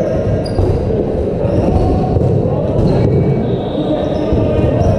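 Dodgeballs bouncing and thudding on a sports-hall floor in rapid, overlapping knocks, with players' voices mixed in.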